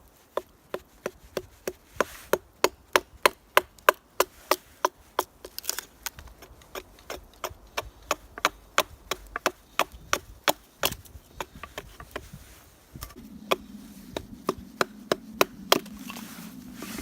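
Fast, even chopping strokes into a piece of wood, about three sharp cracks a second, roughing out a wooden spoon blank; the strokes pause briefly about two-thirds of the way through, then carry on while a low steady hum sets in.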